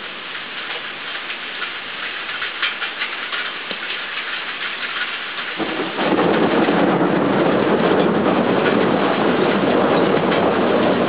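Steady rain hissing, with drops dripping from the edge of the balcony roof. About halfway through, a loud rumble of thunder sets in and keeps rolling.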